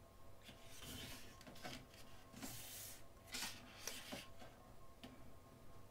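Pages of a thick-paged photo book being turned and pressed flat by hand: a series of soft paper swishes and rubs.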